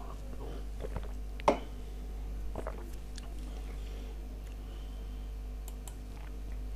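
Quiet room tone with a steady low electrical hum, broken by a few faint short clicks, the sharpest about a second and a half in.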